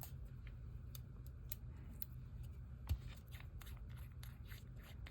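Light scattered clicks and taps from handling small gel polish bottles and their caps, with one louder knock about three seconds in.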